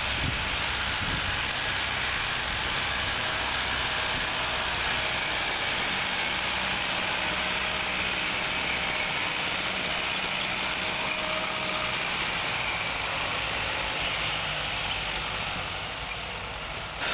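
Farm tractor engines running steadily while pulling plows through a field.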